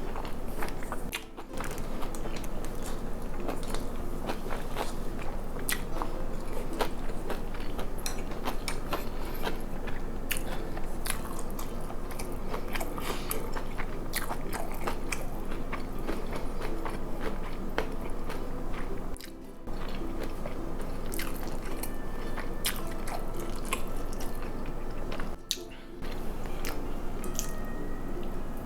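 Close-miked eating: chewing and biting, with many small wet clicks and crunches, over a steady low hum.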